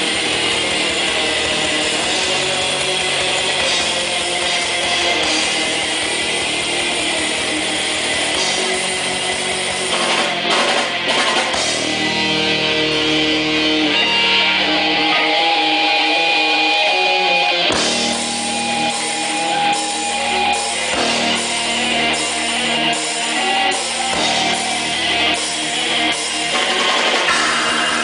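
Heavy metal band playing live: distorted electric guitars, bass guitar and drum kit. Just after the middle the bass and drums drop out for a couple of seconds under held guitar notes, then the full band crashes back in.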